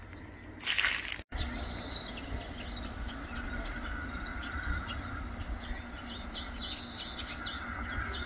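Small birds chirping many times in quick short notes over a low steady rumble of outdoor ambience. About a second in there is a brief loud burst of noise that cuts off abruptly.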